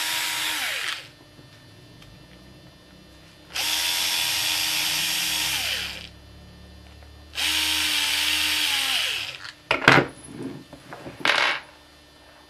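Cordless drill-driver running in three bursts of about two seconds, each winding down as the trigger is let go, while removing screws from a small motor's frame. Near the end a few sharp clicks and knocks of the parts being handled.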